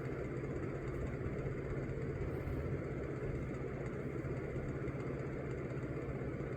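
Steady low mechanical hum with a held low tone and a fluttering rumble, even in level throughout.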